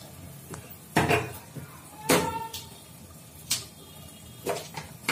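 Metal knocks against an aluminium cooking pot, about five separate clanks, one of them ringing briefly, as raw chicken pieces are put into it.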